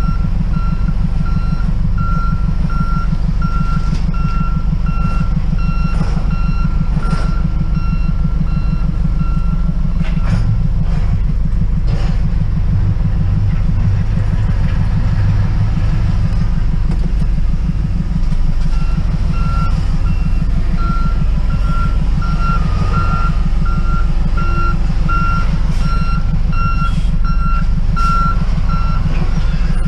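A heavy vehicle's reversing alarm beeping over and over in two runs, for about the first ten seconds and again from about nineteen seconds until near the end, over the steady low rumble of an idling truck engine.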